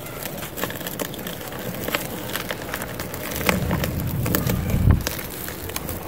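A lump of dry cement crumbling and crunching between two hands, with many small crackles as grit and powder break off and pour down. It turns into a heavier, lower crushing in the second half, loudest about five seconds in.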